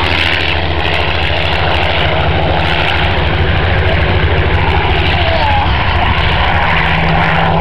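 Supermarine Spitfire PR XIX's Rolls-Royce Griffon V12 engine and propeller droning steadily as the aircraft flies a display pass.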